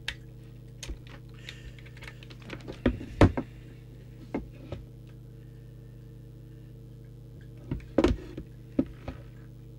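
Scattered clicks and knocks from hands handling the opened Midland 77-095 CB radio and its controls, the loudest about three seconds in and a cluster near the end, over a steady low mains hum.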